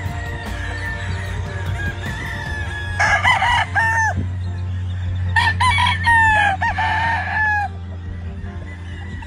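Gamecock crowing twice: a short crow about three seconds in, then a longer crow starting about halfway through and held for a little over two seconds.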